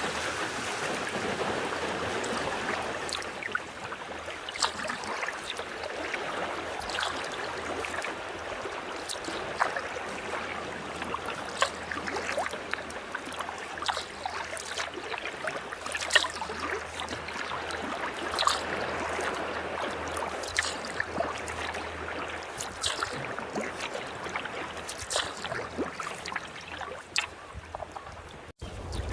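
Sea kayak under way: a steady rush and trickle of water along the hull, with short splashes and drips from the paddle blades every second or two. The sound cuts off abruptly near the end.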